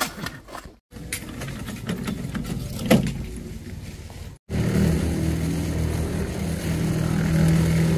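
An engine running steadily from about halfway in, after a quieter stretch of low noise with one sharp knock; the sound cuts out briefly twice.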